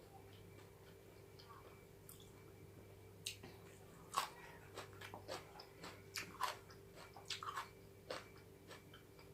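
Close-up chewing and crunching of cooked chicken bones. After a quiet start there is a run of sharp, separate crunches from about three seconds in.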